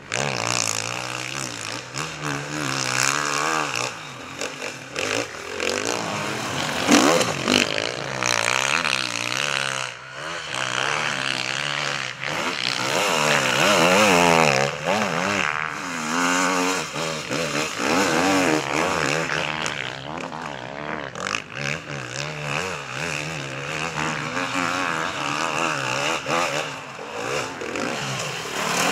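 Enduro motorcycle engines revving hard through sand, the pitch climbing and dropping again and again with throttle and gear changes.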